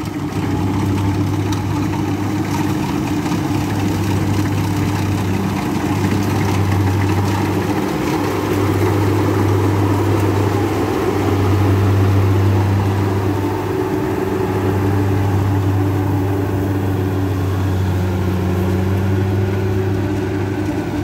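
Kubota combine harvester's diesel engine running steadily under load as it cuts and threshes rice, a continuous low drone that swells a little about halfway through.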